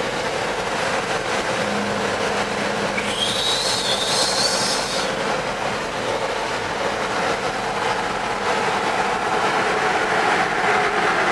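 Steady road and engine noise inside a vehicle's cab while driving on a highway. About three seconds in, a high squeal with hiss rises, holds and stops after about two seconds.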